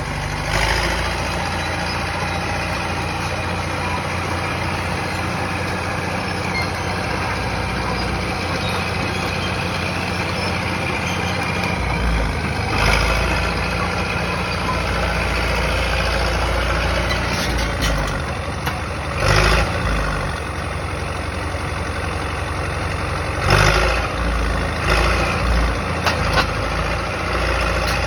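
Cat D4E crawler dozer's diesel engine running steadily. From about halfway on come several short, louder bangs and crackles.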